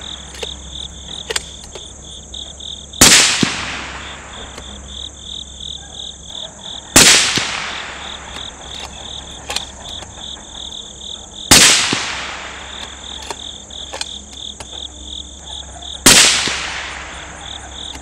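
Four suppressed rifle shots from an Aero Precision Solus bolt-action rifle fitted with a Lahar-30 suppressor, about four seconds apart, each a sharp crack with a short decaying tail. Faint clicks fall between the shots.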